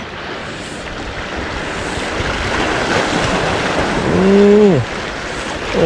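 Sea waves washing on a breakwater, a steady rushing that builds over the first few seconds. About four seconds in, a short, drawn-out voice-like tone rises and falls, and another begins right at the end.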